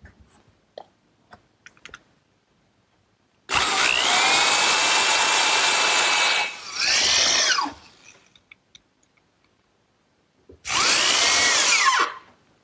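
Electric drill driving screws into wood: a run of about three seconds with a short second burst right after it, then another of about a second near the end, the motor's pitch rising and falling as each screw is driven home. A few faint handling clicks come first.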